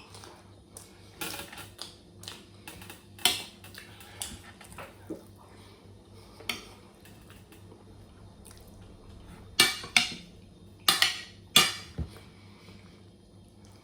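Cutlery clinking against a plate or bowl while eating: scattered sharp clicks, with a cluster of the loudest clinks about two thirds of the way in.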